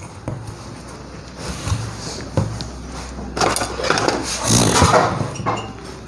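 A thin metal scraper prying and scraping at the edge of a plastic circuit-board cover, with irregular scrapes and small clicks of plastic, busiest in the second half.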